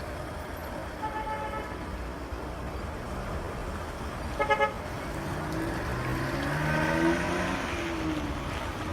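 Road traffic with car horns: a short toot about a second in, then a loud quick double toot. After that, a passing vehicle's engine rises and falls in pitch over a steady low rumble.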